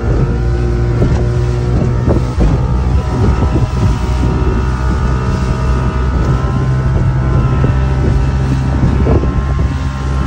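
A 1960s motorboat's engine running at a steady speed under way, with wind noise on the microphone and irregular short thumps.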